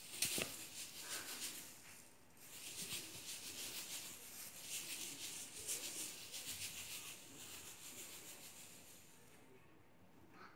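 Metallic tinsel teaser toy rustling and crinkling as it is shaken and swatted, with a sharp tap just after the start. It comes in two long spells with a short break about two seconds in, and dies away near the end.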